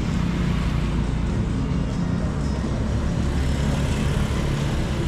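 Steady street traffic: motor vehicle engines running close by.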